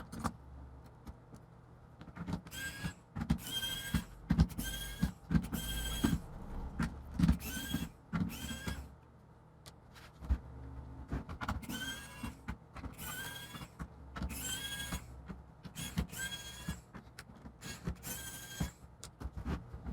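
A small motor whirring in about a dozen short bursts, each under half a second, at much the same pitch each time, with pauses between and a longer lull around the middle.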